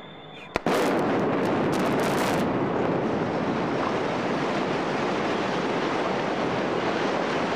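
Explosive demolition of a concrete tower block. A sharp blast about half a second in is followed by a rapid series of detonation cracks over the next two seconds. These give way to a steady, loud rumble as the building collapses.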